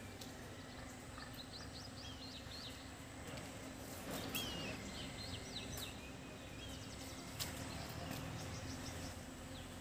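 Small birds chirping in several short bouts of quick, high calls over faint steady background noise, with a couple of light clicks.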